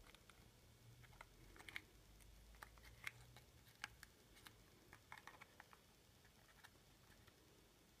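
Faint scattered clicks and light scratches of fingers handling a small cardboard gum box, sliding its sleeve. They come thickest in the first half and thin out near the end.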